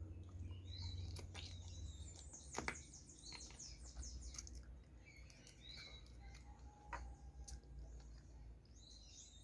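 Birds chirping in the background, with a few faint clicks and smacks of someone chewing food.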